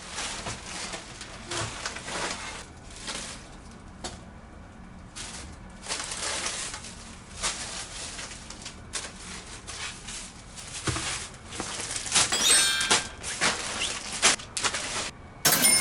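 Handling noises: a series of short rustles and scrapes, with a brief ringing clink about three-quarters of the way in and a louder knock at the very end.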